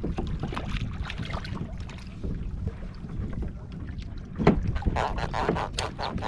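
Wind rumbling on the microphone over water lapping at a kayak, with scattered knocks and splashes against the hull, the loudest about four and a half seconds in.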